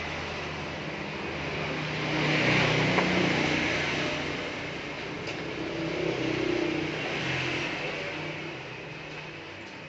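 A motor vehicle engine running, with traffic noise: it grows louder about two to three seconds in and again around six seconds, then fades away.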